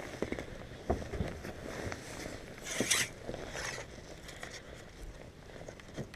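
Handling noises: scattered light knocks and a brief zip-like scraping rustle about three seconds in.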